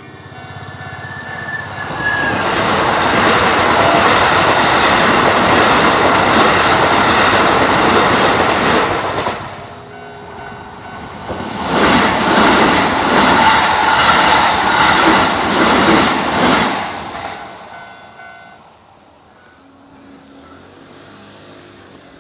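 Keikyu electric trains passing over a level crossing: a loud run of wheels on rail for about seven seconds, a short lull, then a second pass of about five seconds that fades away near the end.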